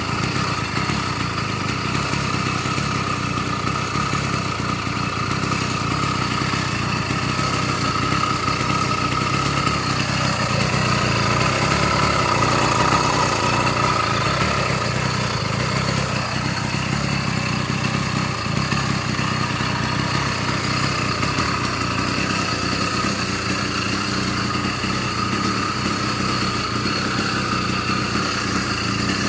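Brand-new YD100 two-stroke motorized-bicycle engine idling steadily, running gently while still in its break-in period.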